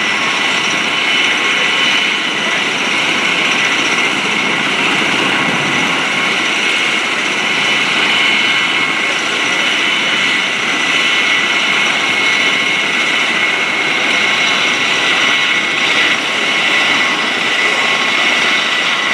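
Sukhoi Su-26 aerobatic plane's nine-cylinder radial engine and propeller running steadily in flight overhead.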